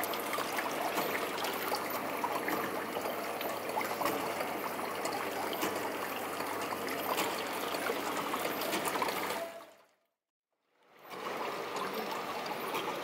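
Water trickling and splashing steadily in a nativity scene's small artificial stream, with many small clicks on top. The sound fades out about ten seconds in and fades back a second later.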